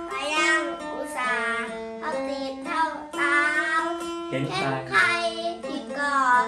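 Acoustic-electric phin, the Isan lute, played plugged in: a plucked melody of held, ringing notes, with a child singing along in a high, wavering voice.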